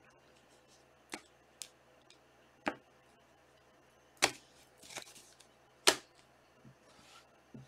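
Trading cards and plastic card holders being handled on a table: about five sharp clicks and taps, the two loudest about four and six seconds in, with soft sliding between.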